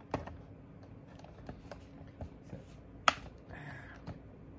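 Small screwdriver clicking and scraping against the plastic lens cover of a Polaroid OneStep 2 camera as it is pried at: scattered light ticks, a sharp click just after the start, a louder click about three seconds in, then a short scrape.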